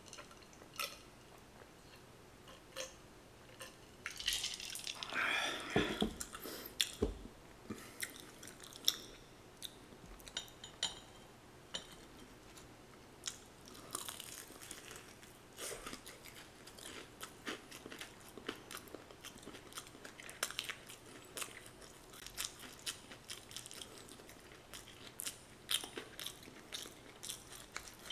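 Close-up mouth sounds of a person eating crispy fried chicken: bites and crunchy chewing with many sharp crackles. A few seconds in comes a denser stretch of gulping a drink, ending in a couple of dull knocks.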